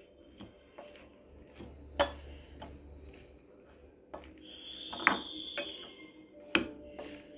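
A spoon tossing a chopped vegetable and fruit salad with sprouted green gram in a glass bowl: scattered clicks and knocks of the spoon against the glass. About four seconds in, a high-pitched whine lasts about a second.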